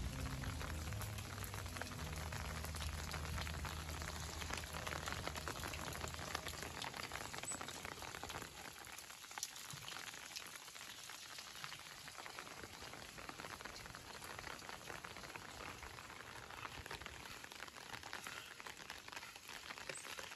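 Light rain pattering and dripping on leaves: a fine, even crackle of many small drops. A low steady hum underneath fades out about seven seconds in.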